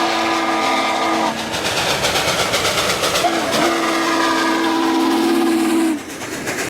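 Western Maryland 734 steam locomotive whistle giving two long blasts, the first ending about a second in and the second starting about halfway through, with steam hissing between them.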